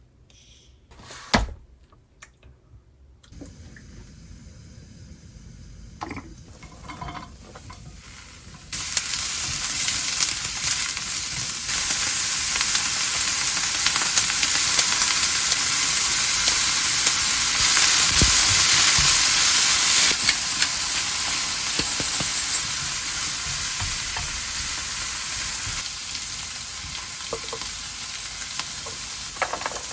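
Food frying in a hot pan: after a sharp knock about a second in and a faint hiss, a loud sizzle starts abruptly about nine seconds in and keeps going, easing a little in the last third.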